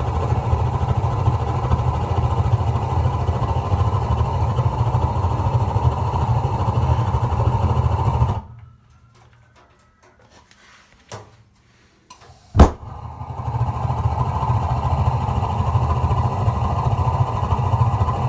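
Gas water heater burner running with a steady rumble, shut down to pilot about eight seconds in; after a couple of faint clicks it relights with a single sharp pop and the flame builds back up to a steady rumble. The burner has been repaired so it lights without the earlier fluttering and blasting.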